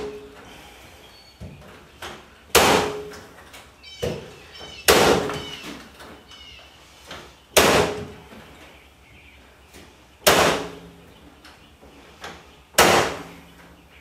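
Corded electric staple gun firing staples through chicken wire into a wooden frame: five sharp shots, one about every two and a half seconds, each with a brief ring after it, and softer clicks between them.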